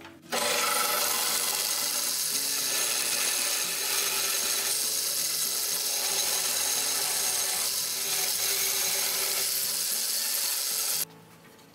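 Band saw running and cutting lengthwise into a wooden workpiece, ripping a long kerf for a joint. The saw noise comes in suddenly just after the start, holds steady, and cuts off abruptly near the end.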